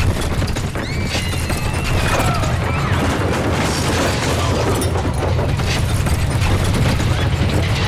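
Earthquake sound effect: a deep continuous rumble with crumbling and crashing debris as buildings collapse, and a few brief high-pitched glides about a second in.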